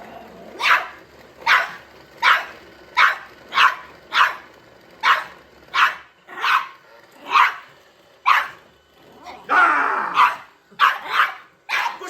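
A dog barking repeatedly at a robot vacuum cleaner, about fifteen short sharp barks at a fairly even pace, with one longer, drawn-out growling bark about ten seconds in.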